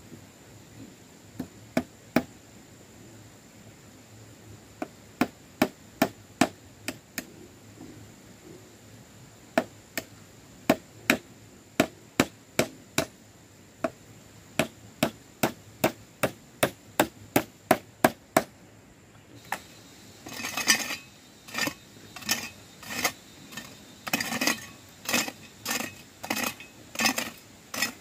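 Hammer blows: a long, uneven series of sharp strikes. About two-thirds of the way through they stop briefly, then come back in quicker clusters of blows.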